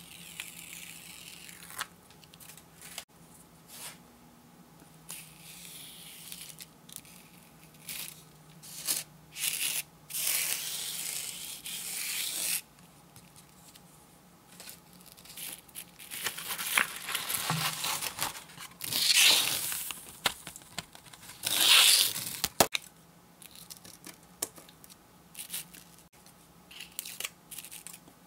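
A sand-art sheet being worked by hand: a pick scratches and peels backing paper off the sticky areas with small crackling tears. Then fine coloured sand is poured over the sheet and the loose excess is tipped off the paper in several hissing rushes, loudest a little past the middle.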